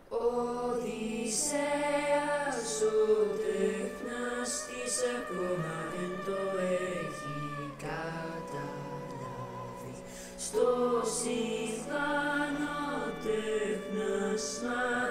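Music: a choir of voices singing long, held notes that now and then slide to a new pitch.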